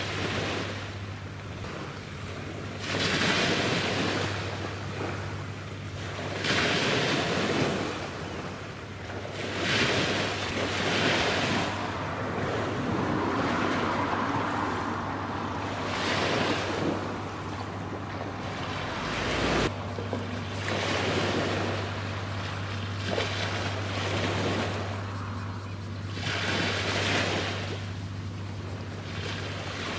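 Small waves washing in, the noise swelling and falling back every three to four seconds, with wind on the microphone and a steady low hum underneath.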